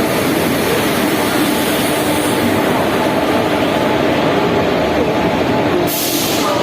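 Busy railway-station din: a train running at the platform under the steady chatter of many voices, with a short sharp hiss near the end.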